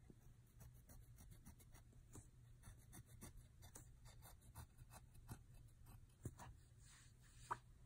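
Pencil scratching faintly on paper in many short quick strokes as zigzag dinosaur teeth are drawn.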